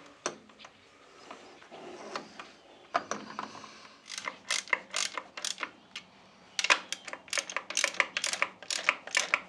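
Quick runs of sharp metallic clicks from a hand tool working on the top of a Land Rover Series 1 gearbox while the gear-shifter cover plate is fitted. There are a few scattered clicks early on, then two dense runs of about four to five clicks a second in the second half.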